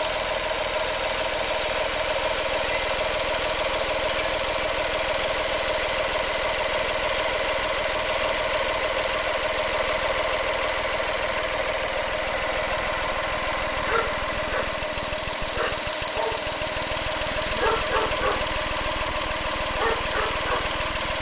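Honda Acty mini truck's engine idling steadily. In the last several seconds a few short, high-pitched blips come in over it.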